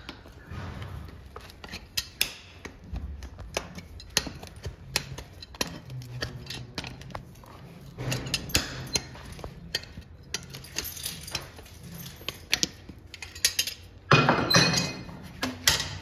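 A steel horseshoe and farrier's tools clinking and tapping against a horse's hoof as the shoe is fitted: scattered sharp metallic clicks and knocks, with a louder noisy scrape lasting about a second near the end.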